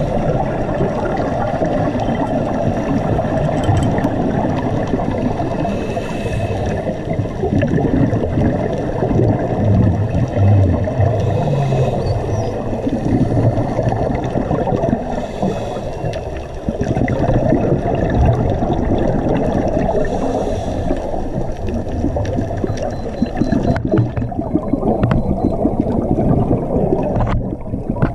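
Muffled underwater water noise picked up by a submerged camera: a steady low rush with gurgling, swelling every few seconds.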